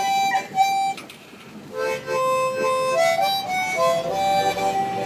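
Harmonica played in a train-whistle imitation: a few short notes, a brief dip about a second in, then held chords that step up and down in pitch.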